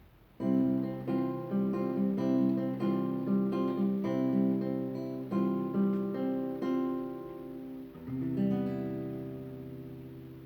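Acoustic guitar playing a run of plucked notes and chords. It ends on a last chord about eight seconds in that rings out and fades.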